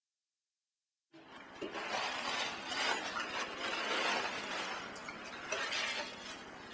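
Silence for about a second, then forks scraping and clinking on dinner plates, with small clinks throughout.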